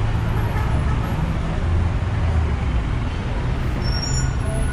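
City street traffic: a steady low rumble of cars and buses passing on a busy avenue, with faint voices of passers-by mixed in.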